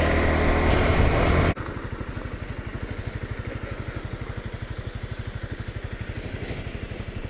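Single-cylinder engine of a Honda CRF dual-sport motorcycle. A loud, steady running hum cuts off suddenly about a second and a half in. It gives way to a quieter, even pulsing of the engine at low revs.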